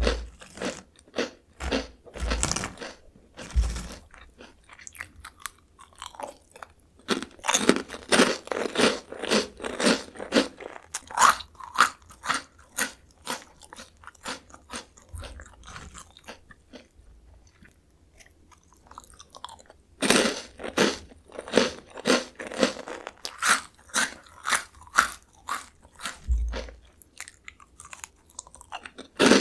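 Close-miked crunching and chewing of Jagalchi seafood-flavour crisps, rapid crisp crunches coming in bursts. The chewing goes softer for several seconds in the middle, then turns loud again about two-thirds through, with a few dull thumps among the bites.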